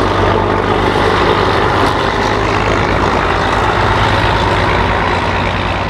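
Engine of a vintage bus running steadily as it drives slowly past, a low even hum.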